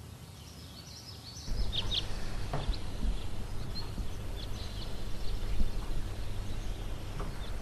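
Birds chirping in short high calls over outdoor background noise. About a second and a half in, a steady low rumble comes in underneath and carries on, with scattered chirps over it.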